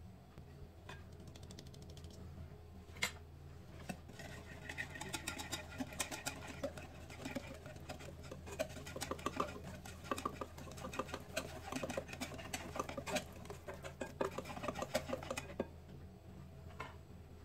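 Wire whisk beating cake batter in a glass bowl: rapid ticking and clattering of the wires against the glass, with wet stirring, from about four seconds in until near the end. A single sharp tap comes about three seconds in.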